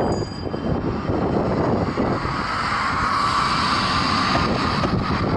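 Outdoor street noise: wind buffeting the microphone over the drone of a passing engine, which swells about halfway through and then fades.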